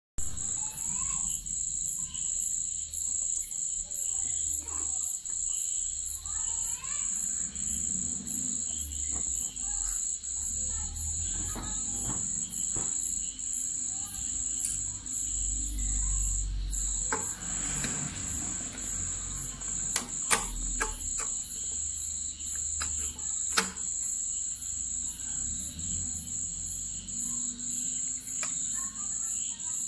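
Crickets chirping in a steady high-pitched pulse, about three chirps a second. A few sharp clicks stand out partway through.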